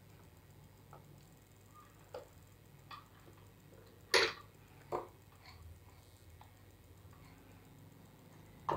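Scattered light clicks and taps from hands working chocolate lollipops on wooden sticks out of a silicone mould, about six in all, the sharpest about four seconds in.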